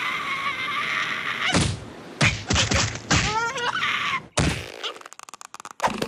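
Cartoon slapstick sound effects: a steady hissing whoosh for about a second and a half, then a run of thumps and whacks with a wavering squawk-like cry among them, and near the end a rapid light clatter and a final thud.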